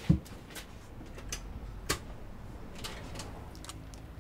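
A short low thump just after the start, then scattered light clicks and ticks over a faint steady hum.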